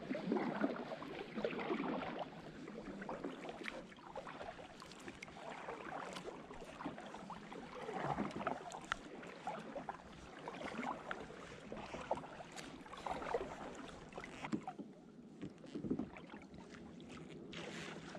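Kayak being paddled through water: paddle strokes swishing and splashing in uneven swells every couple of seconds, with small clicks and knocks between them.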